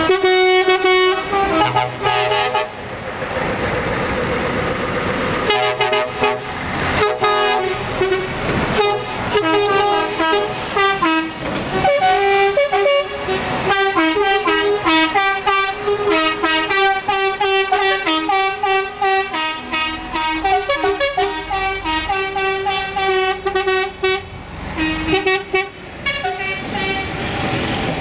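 Trucks sounding their air horns over and over as they pull away, short toots and longer held blasts at several different pitches, over diesel engines running.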